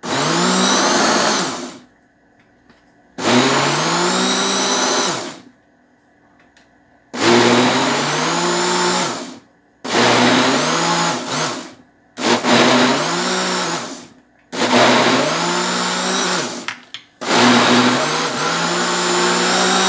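Countertop electric blender blending a flour batter in seven short pulses of about two seconds each. At the start of each pulse the motor's pitch rises as it spins up, then holds steady until it is switched off.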